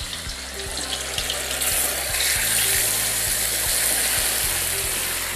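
Pieces of firm brine tofu going into hot salted oil in a wok and frying with a steady sizzle that grows stronger about two seconds in.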